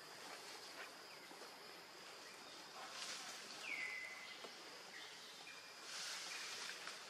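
Faint forest ambience: a steady high insect drone, with one bird call that slides down and then holds, about halfway through. Short hissy rustles come about three seconds in and again near the end.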